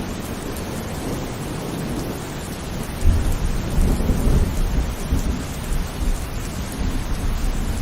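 Heavy rain falling steadily, with a low rumble of thunder that starts suddenly about three seconds in and fades over a couple of seconds.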